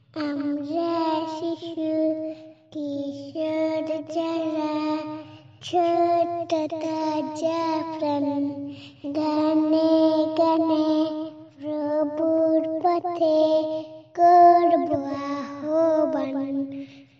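A young girl singing a Bangla Islamic song unaccompanied, in held melodic phrases a few seconds long with short breaks between them.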